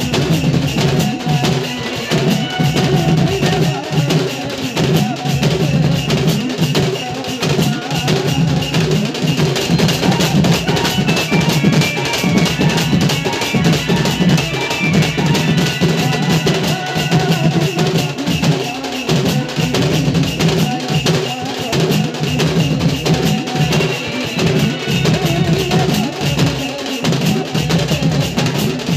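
A band of dhol drums, slung double-headed barrel drums, beaten together in a dense, driving rhythm with other music, loud and without a break.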